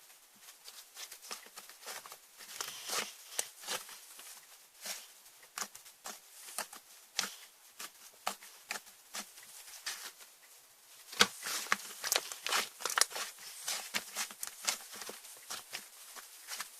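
Slime being squeezed and stretched by hand, making irregular sticky clicks and small pops that grow busier and louder about two-thirds of the way through.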